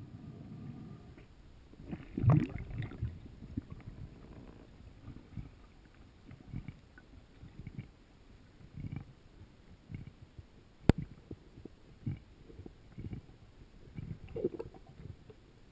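Muffled underwater sound of a diver swimming with a speargun: irregular low thumps and rumbles of moving water, heard underwater, with one sharp click about eleven seconds in.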